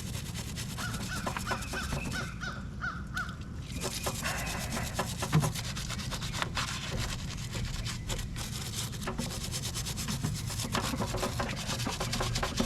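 Brush scrubbing baking soda into a corroded car battery's positive terminal, a run of short rasping strokes. About a second in, a bird gives a quick series of short calls lasting a couple of seconds.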